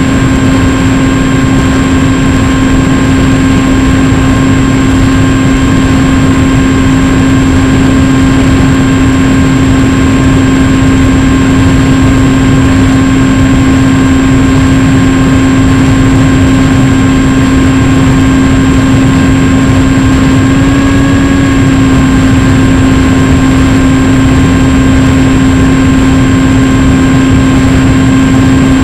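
Motor and propeller of an FPV radio-controlled model plane in flight, heard from on board: a steady hum over a constant rush of air, with a brief slight rise in pitch about twenty seconds in.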